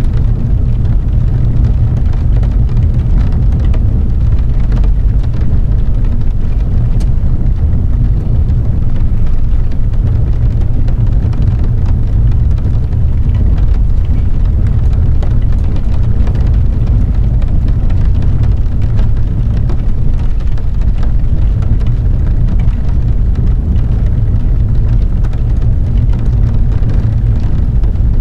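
Steady low rumble of a car driving on a wet road, heard from inside the cabin, with raindrops ticking on the windshield.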